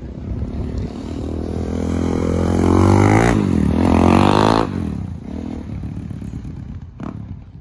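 Suzuki DR-Z400 single-cylinder four-stroke with an FMF Powercore 4 exhaust riding past. The engine note grows louder as it approaches, drops in pitch as it passes about three seconds in, then fades as it rides away.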